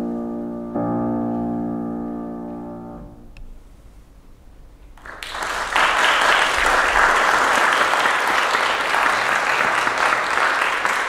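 A grand piano's final chord rings and dies away. After about two seconds of quiet, audience applause breaks out, louder than the piano, and keeps going.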